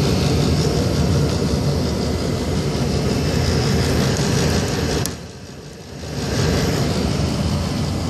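1995 Tempstar SP80 gas furnace running with its draft inducer fan and gas burners lit: a steady rushing mechanical noise over a low hum. About five seconds in there is a click, and the sound drops away for about a second before returning.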